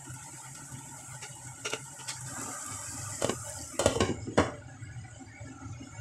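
Squid and vegetables sizzling in a hot pan, with a few knocks of a wooden spatula against it. About four seconds in, a glass lid clanks down onto the pan in a few loud hits, and the sizzle turns muffled under it.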